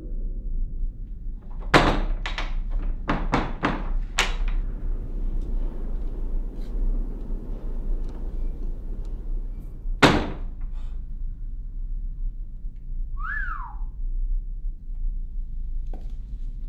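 A quick series of sharp knocks, then one loud thunk about ten seconds in, over a steady low rumble. Near the end, a short whistle-like tone rises and then falls.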